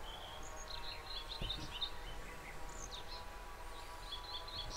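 Small birds chirping and singing, with many short calls overlapping throughout, over a faint steady hum and low rumble of outdoor background noise.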